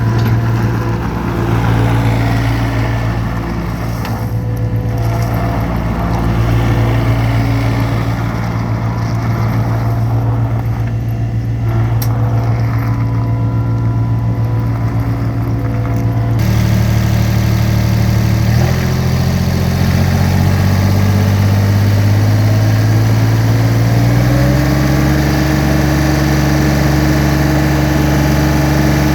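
Gehl R105 skid steer loader's engine running at a steady idle. About two-thirds of the way through, the sound changes and the engine speed rises in steps to a higher, steady throttle.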